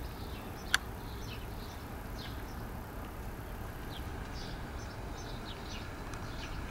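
Faint, scattered high chirps of small birds calling, over a steady low background rumble, with one sharp click about a second in.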